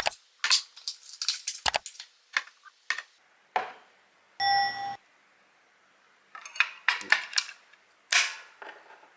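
Clicks and knocks from handling a plastic battery compartment and C-size batteries, with a short ringing ding about halfway through.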